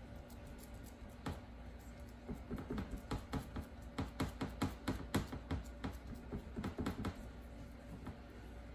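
Fingertips pressing and patting crumbled cheese down into a pan, a quick irregular run of soft taps and clicks, several a second, thickest in the middle, over a low steady hum.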